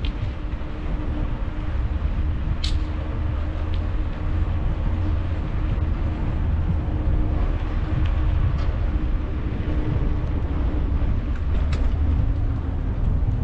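Wind rumbling on the microphone of a moving camera, with a faint steady hum underneath and two sharp clicks, one about three seconds in and one near the end.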